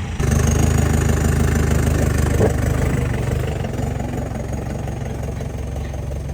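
Mahindra jeep's DI turbo diesel engine running steadily, jumping louder a moment in and then easing down slowly.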